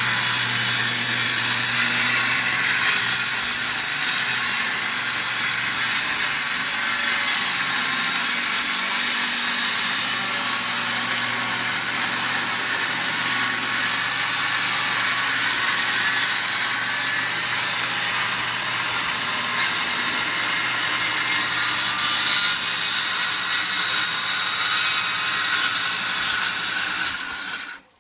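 Electric circular saw running and cutting through timber in one long continuous cut, stopping suddenly near the end.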